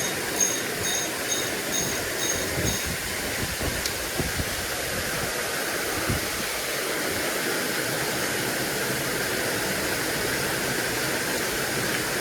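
Steady rush of water pouring over a spillway, with wind buffeting the microphone in low thumps. A short run of high, evenly spaced ticks, about two or three a second, sounds in the first three seconds.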